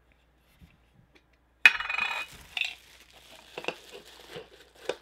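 Quiet, then about a second and a half in a sudden loud rustle and scrape, followed by plastic wrapping crinkling and light clicks as a bagged vinyl figure is pulled out of a metal Funko Soda can.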